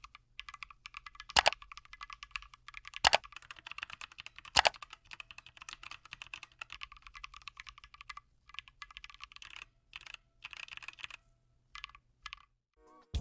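Typing on a custom mechanical keyboard with Holy Panda tactile switches: a fast, continuous patter of key presses, with three much louder key strikes about a second and a half apart in the first five seconds. The typing thins out and stops near the end.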